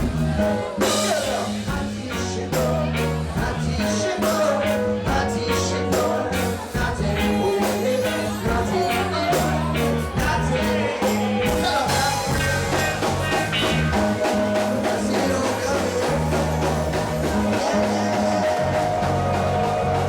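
Live reggae band playing: a bass line of held, stepping notes and a drum kit, with a voice singing over them. The drum hits grow sparser about halfway through.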